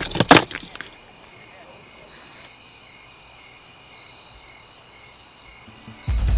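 Two sharp knocks right at the start, then a steady high-pitched chorus of crickets chirping.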